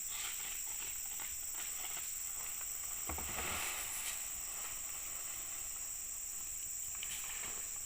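Steady high-pitched buzz of insects, with a brief soft low thump about three seconds in.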